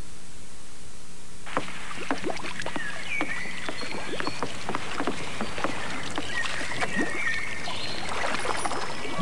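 Water splashing and lapping around a punt being poled along a river, with many small clicks and knocks and short bird chirps. It starts suddenly about a second and a half in, over a steady hiss.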